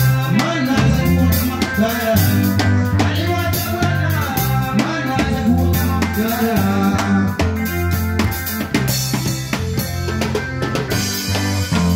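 Music: a song with a drum kit keeping a steady beat over a bass line, and a lead melody that bends up and down in pitch.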